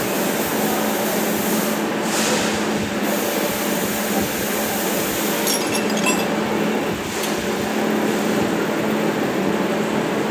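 Horizontal milling machine running steadily, a constant mechanical hum with a low tone, with a few light metallic clinks a little past the middle.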